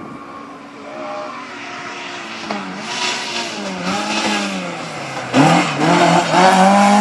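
Rally car coming through a tarmac stage, its engine revving hard: the pitch climbs and drops sharply several times at the gear changes. It grows louder as it approaches and is loudest from about five seconds in as it passes close by.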